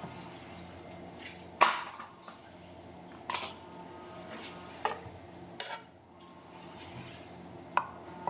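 A metal utensil clinks against cookware as food is dished out, five sharp clinks a second or two apart, each with a short ring. The first is the loudest.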